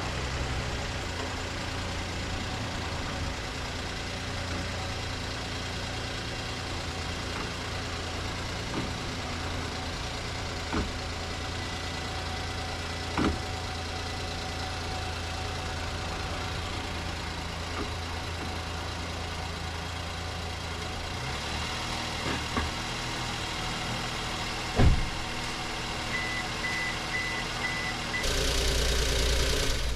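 Suzuki Every Wagon's 660 cc three-cylinder engine idling steadily after an oil change, with a few sharp knocks over it. About two-thirds of the way through, the low idle note steps down. Near the end there is a short string of high beeps, and then the sound grows louder.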